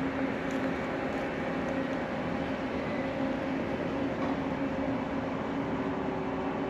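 A large ship's engine running steadily, a constant hum with an even noise underneath.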